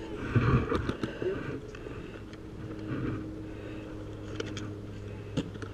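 Footsteps scuffing on dry dirt over a steady low hum, with a few sharp clicks scattered through.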